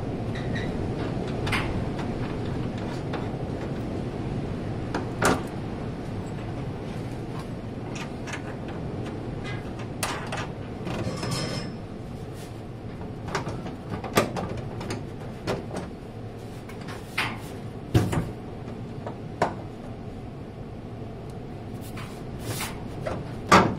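A Triumph TR7 fuel tank being pushed and shuffled into place by hand: scattered short knocks, taps and rubbing sounds as it shifts against its straps and mounting, over a steady low background noise.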